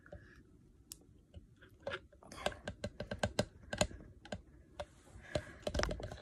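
White plastic fork clicking and scraping against the rims and sides of plastic tubs as it digs out thick Sulfur8 hair grease: a quick run of small irregular clicks, coming thickest in the middle and again near the end.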